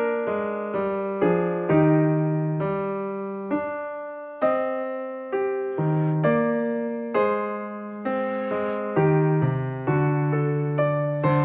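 Background piano music: slow single notes and chords struck one after another, each ringing and fading before the next.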